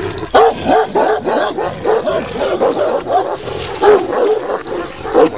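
Dogs barking and yelping in quick succession, several short calls a second, sometimes overlapping, without pause.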